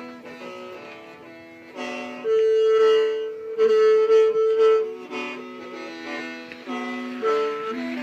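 H'Mong khen, a bamboo free-reed mouth organ, playing a melody over a steady low drone, with several pipes sounding at once. It grows louder about two seconds in, where a long high note is held for about three seconds.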